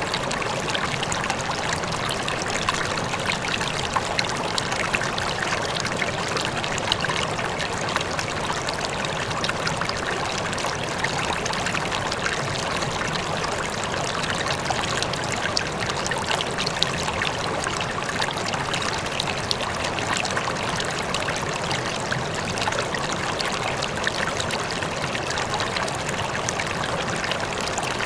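A river or stream flowing steadily, water burbling and splashing over rocks with a constant rushing sound.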